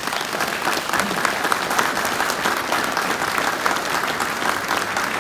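An audience clapping steadily: a dense, even applause from many hands that continues without a break.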